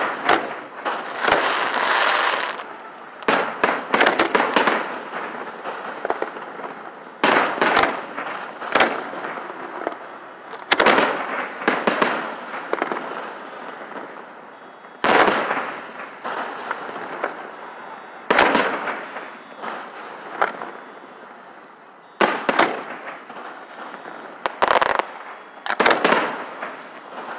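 Aerial fireworks shells bursting overhead during a display: a string of loud, sharp bangs, often two or three in quick succession, recurring every few seconds, each trailing off into echoing rumble.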